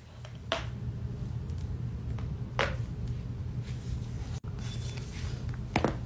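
Joints cracking: sharp pops about half a second in and about two and a half seconds in, then a loudest double pop near the end, over a steady low hum.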